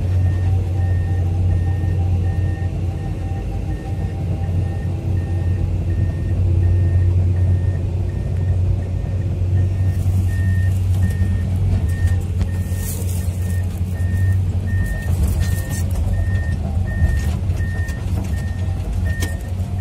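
Komatsu PC210-10 excavator's six-cylinder diesel engine running steadily under load as it tracks uphill, its travel alarm beeping about twice a second. From about halfway in, metallic clanks and a brief high squeal from the moving tracks join it.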